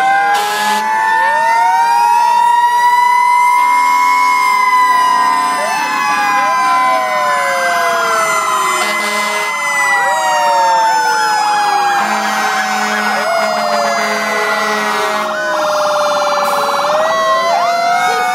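Several fire truck sirens wailing at once, their pitches rising and falling and overlapping as the trucks pass. From about halfway through, a fast electronic warble joins in, along with a few short, low blasts.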